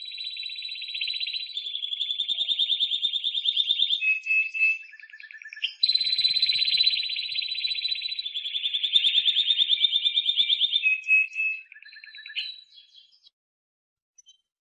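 Spanish Timbrado canary singing a long, high-pitched song of rapid rolling trills, switching to a new trill every two seconds or so. The song stops about 13 seconds in.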